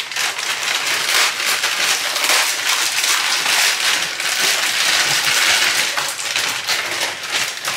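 Plastic packets of dried bihon rice noodles being crinkled and torn open by hand: a dense, continuous crackling.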